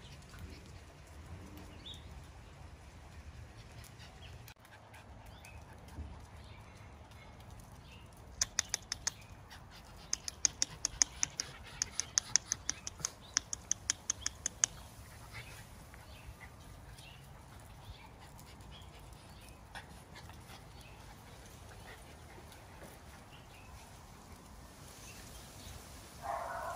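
A puppy's short bark near the end, from one of the Miniature Schnauzer puppies. Before it, in the middle, comes a run of about twenty sharp clicks at roughly four a second, lasting some six seconds.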